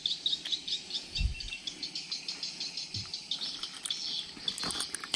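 Insects chirping in a steady, fast, high-pitched pulse of about six chirps a second, with a couple of soft low thumps.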